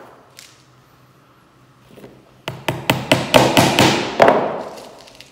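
A small hammer driving steel tacks through a sheepskin into a wooden board. After a quiet first half, it gives a quick run of about nine sharp, ringing taps over about two seconds.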